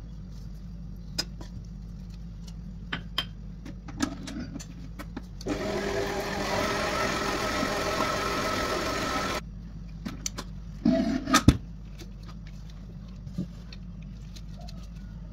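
Stand mixer motor running for about four seconds in the middle, its dough hook kneading donut dough with butter being worked in; it starts and cuts off suddenly. About a second and a half later come a few loud, sharp clunks of the mixer being handled, with light clicks and taps before and after.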